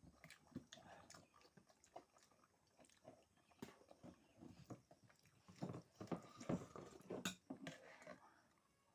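Faint eating sounds: soft chewing and small clicks, busier in the second half.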